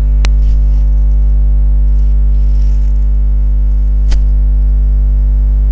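Loud, steady electrical mains hum with a stack of overtones, unchanging throughout, broken by two sharp clicks, one just after the start and one about four seconds in.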